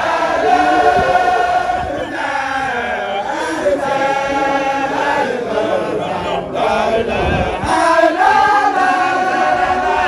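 Large group of Baye Fall disciples chanting together in unison, a loud, continuous religious chant in long drawn-out phrases, of the kind sung as zikr with hands cupped over the ears.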